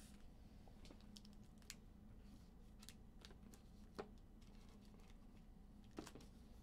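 Near silence with a few faint, scattered clicks and ticks, the loudest about four and six seconds in.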